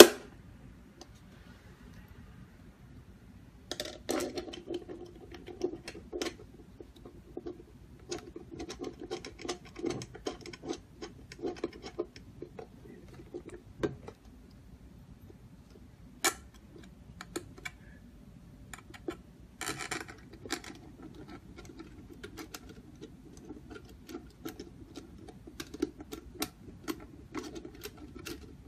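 Screws being turned in by hand with a screwdriver to fix a lock's metal inner mounting plate: a long run of small irregular clicks and short scrapes, starting a few seconds in, with a few louder sharp clicks.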